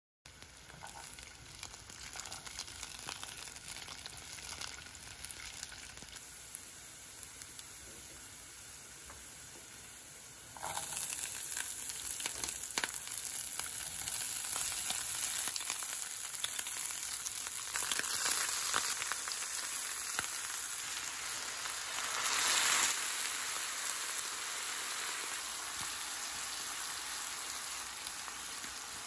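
Food sizzling and frying in a hot pan, a steady crackling hiss that turns suddenly louder about ten seconds in and swells briefly a little past twenty seconds.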